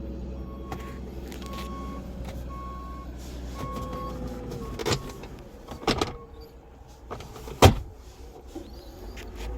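A car's warning chime beeping about once a second over a steady low rumble, stopping about four seconds in. Then three sharp knocks follow, the loudest near the end.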